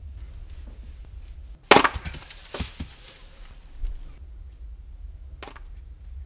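An axe strikes wood with a sharp crack, followed by splintering and a second, lighter strike about a second later. A short knock comes near the end, over a low steady hum.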